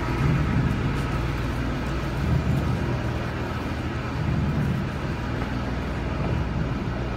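City bus engines idling, a steady low rumble with slow swells.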